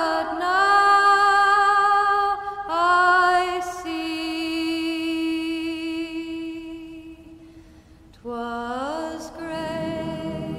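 Background music: a solo female voice singing long held notes without words, sliding up into several of them.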